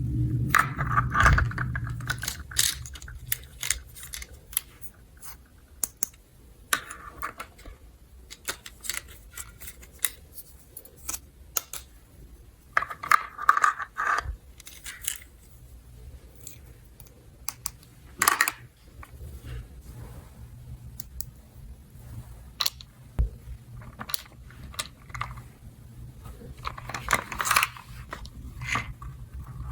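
Small hard plastic toy pieces being handled: irregular clicks, taps and light clatter, with a few brief rustles.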